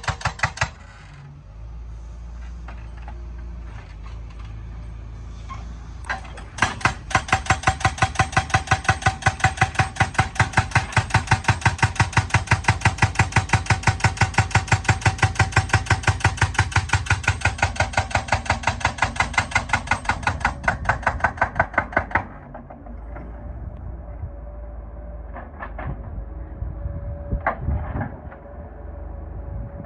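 Excavator-mounted hydraulic breaker hammering in a rapid, even rhythm of several blows a second. It stops about a second in, leaving the engine running. It starts again about six and a half seconds in and hammers until about 22 seconds in, then the engine runs on with a few single knocks.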